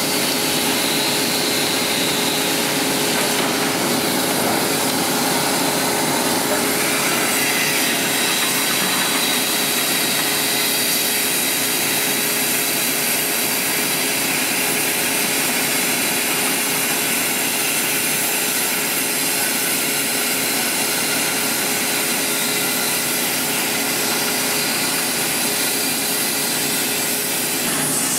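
An abrasive disc cutter cutting through steel: a steady, unbroken grinding with a constant hum under it.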